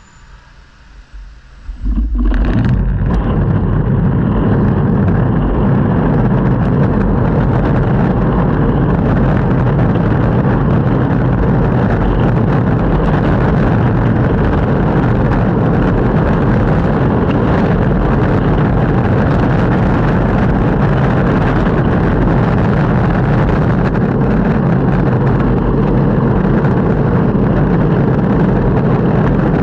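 Longboard wheels rolling over the road surface: a loud, steady rolling noise that sets in about two seconds in, after a quieter moment.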